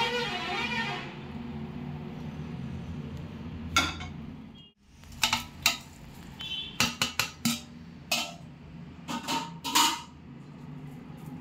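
Background music fades out in the first second. Then a metal ladle clinks and scrapes against a steel mixing bowl as thick pickle paste is stirred, several sharp clinks between about five and ten seconds in.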